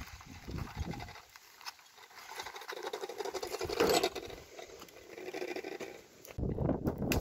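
Footsteps and a loaded wheelbarrow's wheel crunching and scratching over dry, stony ground, with a sudden low rumble coming in near the end.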